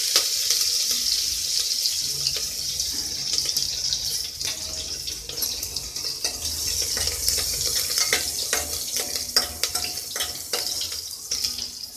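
Garlic and green chillies sizzling in hot mustard oil in a pressure cooker, the steady hiss slowly dying down. From about eight seconds in, a spoon stirring clicks and scrapes against the pot.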